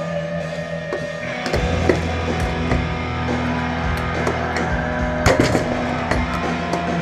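Rock music with guitar, with several sharp knocks through it.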